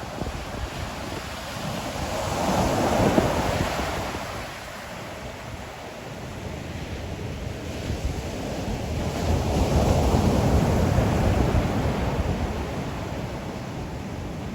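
Ocean surf breaking on the shore, two waves swelling and falling away, the first peaking about three seconds in and the second, longer one about ten seconds in. Wind buffets the microphone with a low rumble throughout.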